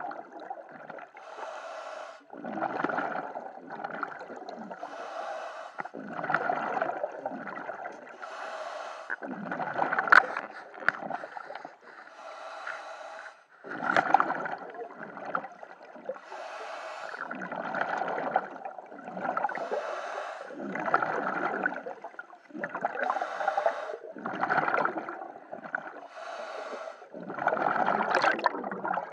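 A scuba diver breathing through a regulator, heard underwater: a regular cycle of inhale hiss and exhaled bubbles, roughly one burst every second or so.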